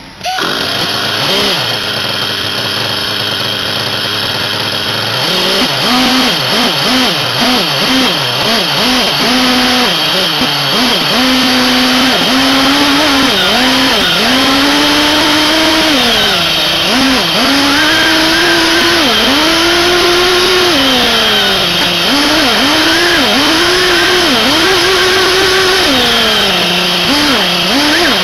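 Small two-stroke glow-fuel nitro engine, an SH PT21-P3 (3.48 cc), heard from a camera on the RC buggy itself. It runs at a steady note for about five seconds, then revs up and down again and again as the throttle is opened and closed while the car drives through dense grass.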